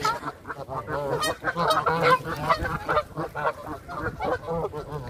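Canada geese honking, many short calls overlapping in quick succession.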